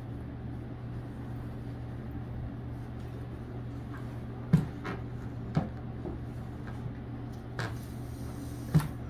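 A motorcycle helmet in a cloth bag being handled and set down on a wooden table: a few soft knocks, the clearest about halfway through and near the end, with the rustle of the bag being pulled off. A steady low hum runs underneath.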